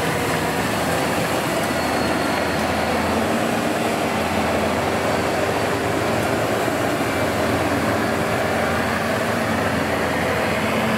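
Yanmar YH850 rice combine harvester working in ripe rice: its diesel engine and cutting and threshing machinery running steadily under load, a loud, even mechanical din with a low steady hum.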